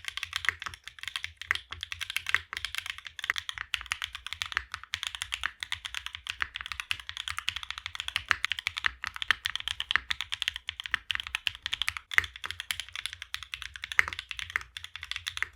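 Continuous fast typing on a Mode65 mechanical keyboard with NovelKeys NK Cream+ switches, a carbon fibre plate, no foam and GMK keycaps: a dense run of sharp, bright key clacks, many per second.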